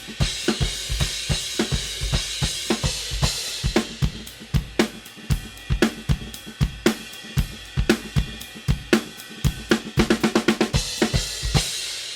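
Full drum kit playing a groove of kick, snare and hi-hat with an Istanbul Mehmet IMC crash cymbal struck over it, its wash ringing above the beat. A fast fill near the end lands on a final crash that is left ringing and fading out.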